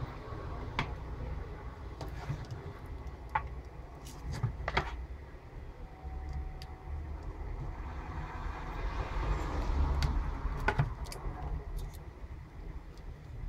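Steady low background rumble, with several light clicks and taps from a circuit board and a soldering iron being handled.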